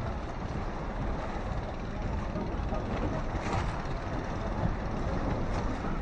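Steady rumble of a motorized outrigger boat (bangka) under way, with wind on the microphone and water washing along the hull.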